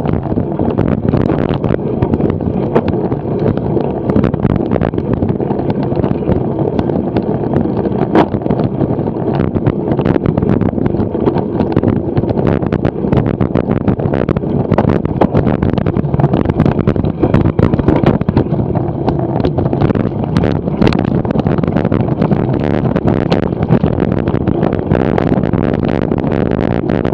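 Steady rumble and rattle of a cyclo-cross bike ridden over dirt and rutted sand, picked up by a camera mounted on the bike, with wind on the microphone and many small knocks from the frame jolting.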